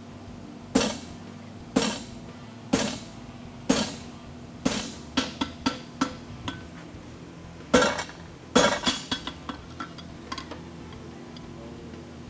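Hammer blows on a hand-held punch driven into a red-hot steel bar on an anvil, punching the eye of a fuller. Five heavy metallic clanks come about a second apart, then a run of lighter quicker taps. Two more heavy blows around eight seconds in are each followed by quick lighter rebounds.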